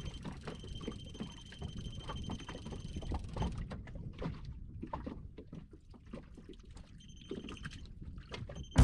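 Water slapping and sloshing against a small boat's hull, with small irregular knocks. A faint steady high whine runs through the first few seconds and returns briefly near the end.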